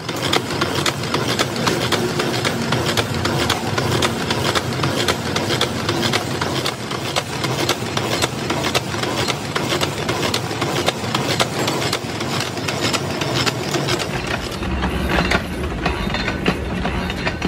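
Metal-cutting machine tool machining the flange of a tractor rear axle half shaft: a steady mechanical hum with a dense run of clicking from the cut. A deeper rumble joins about three-quarters of the way through.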